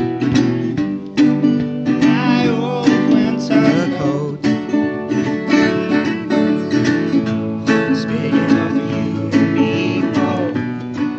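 Live unplugged acoustic blues: plucked acoustic slide guitar with a regular plucked rhythm. A melody line bends and wavers in pitch twice, a little after the start and again near the end.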